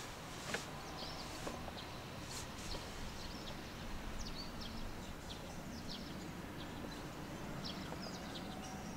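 Small birds chirping, with many short high calls scattered throughout, over a low steady hum; a single knock about half a second in.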